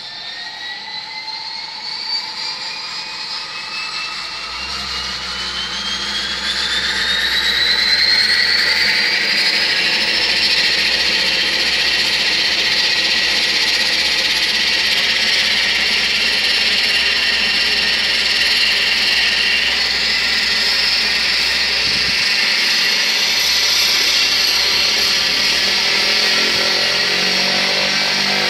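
Cessna Caravan's Pratt & Whitney PT6A turboprop engine spooling up, typical of an engine start: a high turbine whine rises in pitch and loudness over about ten seconds, then settles into a steady whine and hum at idle.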